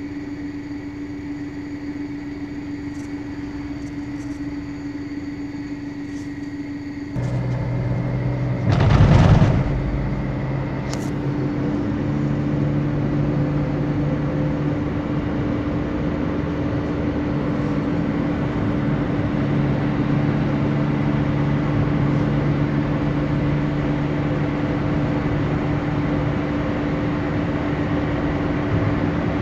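Inside a moving car: steady engine and road noise with a constant hum. It gets louder about seven seconds in, with a brief loud noise about nine seconds in.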